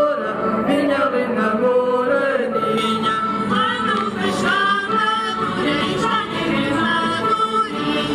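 Live Portuguese folk song: several voices singing together over guitar accompaniment, playing for a ring dance.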